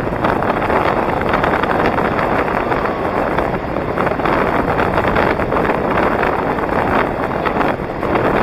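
Steady, loud wind noise on the microphone of a camera moving at skating speed, mixed with inline skate wheels rolling on asphalt.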